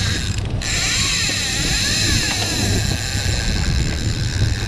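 The boat's Suzuki 300 outboard motors running with a steady drone; a steady high hiss joins in about half a second in.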